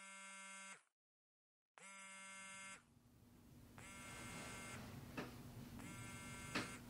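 An electronic buzzer sounds in regular pulses about a second long, one roughly every two seconds, with a couple of faint clicks between the later pulses.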